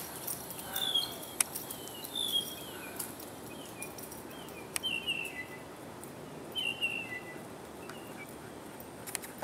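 A bird calling over and over: short, high chirps that slide downward, repeated about every second, stopping after about seven seconds. A few faint clicks are heard as well.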